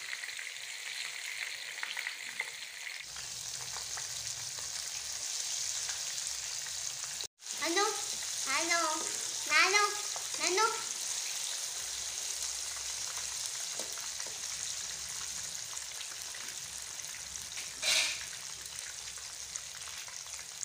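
Besan-battered fish pieces deep-frying in hot ghee in a wok: a steady sizzling hiss, with a spatula stirring and turning the pieces. Between about 8 and 11 seconds in, a few short pitched calls rise and fall over the sizzle, and there is a short loud burst near the end.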